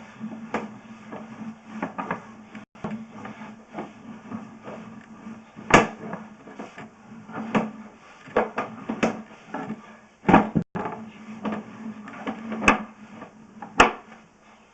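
A sewer inspection camera's push cable being pulled back onto its reel: irregular clicks and knocks over a steady low hum, the loudest knocks about six, ten and fourteen seconds in.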